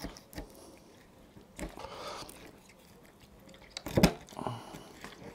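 Knife cutting a silver carp fillet away from the backbone: a few short, wet cutting sounds, with one sharper knock about four seconds in.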